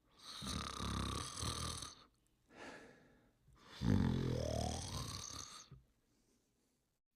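Cartoon character snoring: a rasping snore, a short faint breath, then a louder snore that ends in a rising whistle-like glide, followed by a pause.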